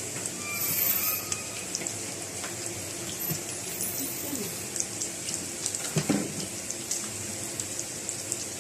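Fried pork and sauce sizzling and crackling in a hot pan, with a single knock about six seconds in.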